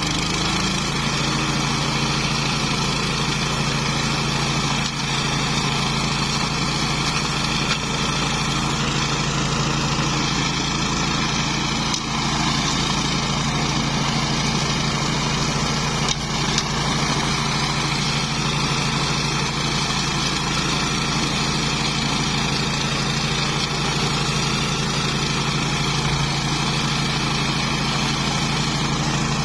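Engine of a flail mower running at a steady speed, with an even, unchanging note.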